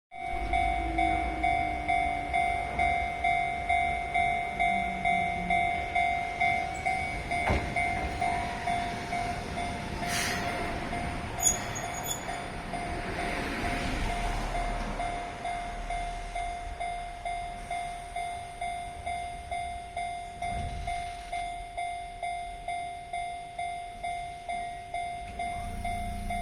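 Level-crossing warning bell ringing steadily at about two strikes a second, while a Keihan 600 series two-car train passes over the crossing around the middle. A short, loud, high sound comes about eleven seconds in.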